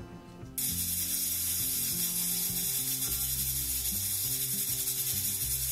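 Pressure cooker at full pressure: its weighted valve rattles rapidly while steam hisses steadily. It starts about half a second in.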